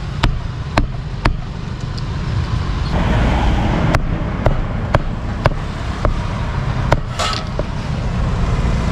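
Knife chopping grilled meat in quick, even strokes, about two a second with a short pause partway through, over a steady rumble of street traffic.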